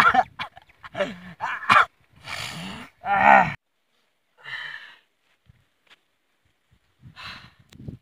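A man groaning and crying out several times, loud and short, while breathing in hot steam from a pot of boiled herbs under a cloth. After about three and a half seconds only a few faint breaths follow.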